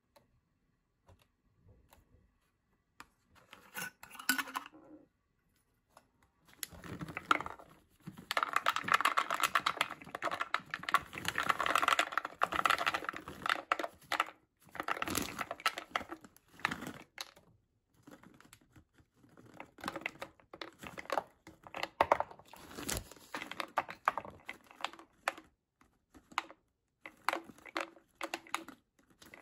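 Mixed nuts poured from a crinkling bag into a thin clear plastic bottle, clattering and rattling against the plastic, with the bag rustling. After a quiet start it is dense for about ten seconds, then turns to scattered rattles and taps.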